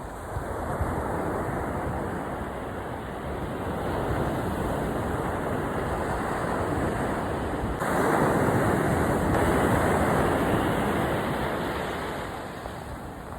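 Ocean surf washing onto a sandy beach, a steady rush that swells louder for a few seconds past the middle and then eases off.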